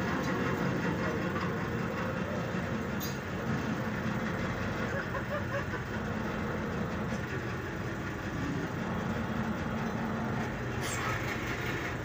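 Hydraulic press running steadily with a low mechanical hum as its ram bears on a chrome cylinder rod to straighten it. A couple of brief sharp clicks, about three seconds in and near the end.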